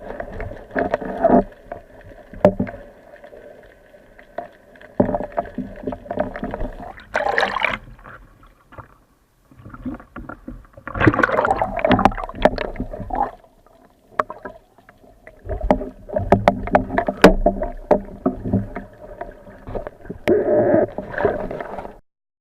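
Water sloshing and splashing in irregular surges, with scattered sharp knocks.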